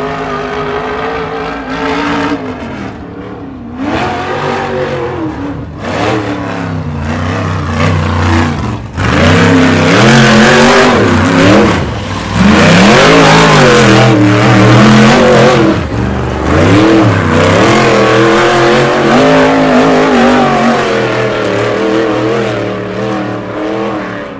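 Single-seat UFO-chassis Ultra4 race car's engine revving hard in repeated bursts as it climbs a boulder section under load, its pitch climbing and dropping with each stab of throttle. It is loudest through the middle, where the revs are held high.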